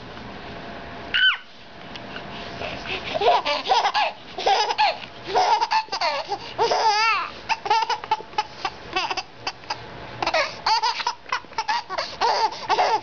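Baby laughing hard in repeated runs of giggles and belly laughs, with a short high squeal about a second in.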